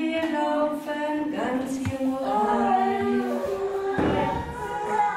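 Female voices singing a slow song in long held notes, with a brief noise about four seconds in.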